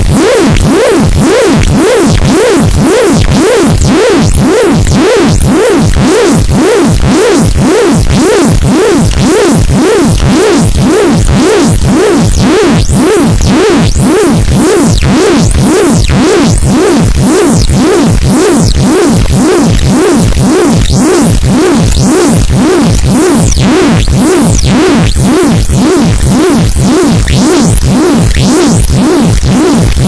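Computer-generated audio from the IBNIZ virtual machine running a one-line program: a loud, steady train of rapid electronic pulses, with thin sweeping tones high above.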